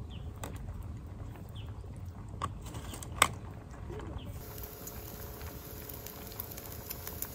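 Low outdoor rumble with scattered small handling clicks and one sharp click about three seconds in; from about halfway, faint fine crackling of pork belly slices cooking on a wire grill.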